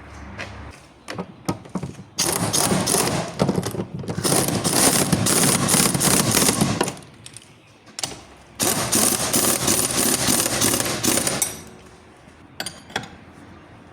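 Impact wrench hammering on suspension-link bolts in two long bursts, the first about four and a half seconds, the second about three, with a few short clicks of tools around them.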